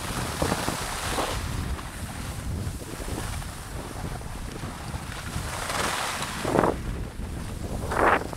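Wind buffeting the microphone of a hand-held camera carried by a skier going downhill, over the steady sound of skis sliding on snow. Several louder swishes of the ski edges scraping through turns stand out, the strongest near the end.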